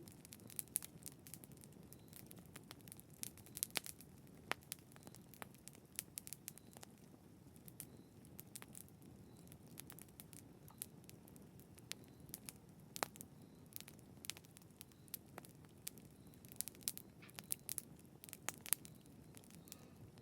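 Wood campfire crackling: irregular sharp pops and snaps over a faint low hiss.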